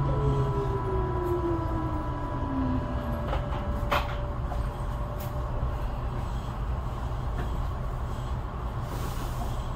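Tobu 9000 series electric train heard from inside the car, slowing into a station: its motor whine falls in pitch over the first few seconds over a steady low rumble. A steady higher whine cuts off with a sharp click about four seconds in, and then only the rumble of the car is left.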